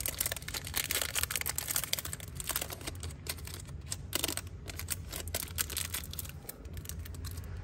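Rapid small clicks, taps and rustles of a Zippo lighter and its box being handled and packed away, thinning out near the end.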